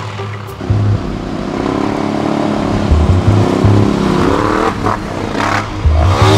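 Quad bike and dirt bike engines revving as they ride up a trail, the pitch rising and falling with the throttle. One passes close by near the end.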